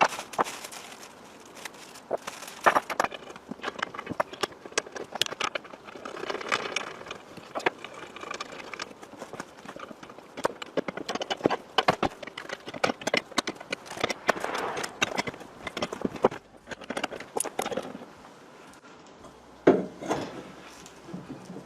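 Irregular knocks, clicks and clanks of metal drill-press parts being handled and fitted together during assembly.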